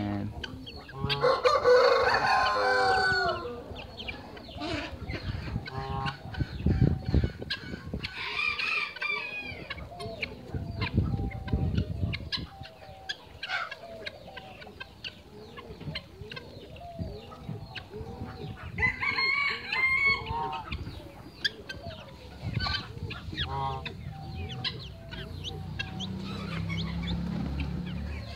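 Belgian d'Uccle chicks peeping and chirping in short calls, broken by three longer, louder runs of chicken calls about two seconds in, near nine seconds and near twenty seconds.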